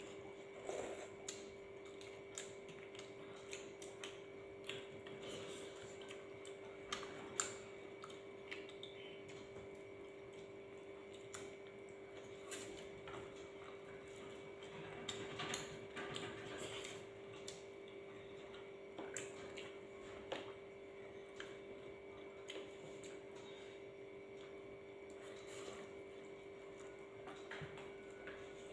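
Quiet eating at a table: scattered small clicks and soft mouth and tableware noises, one sharper click about seven seconds in, over a steady low hum.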